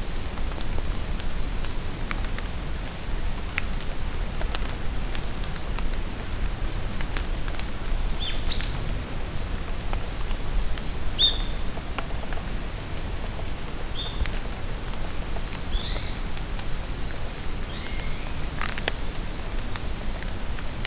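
Steady rain falling in a forest, with scattered drops pattering, while birds call. Short downward-sliding whistles and quick bursts of high chirps come every few seconds.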